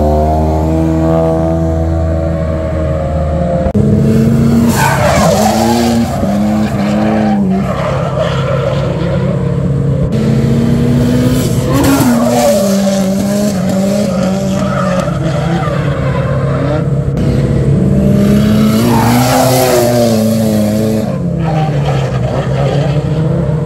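Drift cars on a circuit. One engine runs at steady low revs for the first few seconds, then, after a cut, engines rev up and fall back again and again as the cars slide through corners with tyres screeching.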